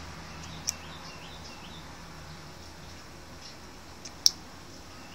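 Two sharp clicks, a small one under a second in and a much louder one about four seconds in, as a fingernail file pokes and presses down on the Try Me tab inside a talking doll's back, working it away from the spring bar it must not touch. A steady low hum runs underneath.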